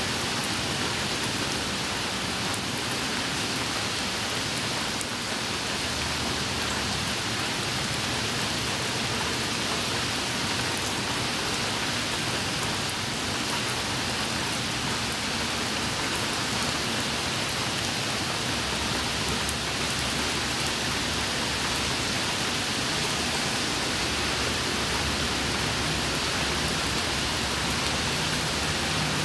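Steady rain falling on wet pavement, an even hiss with no breaks or separate events.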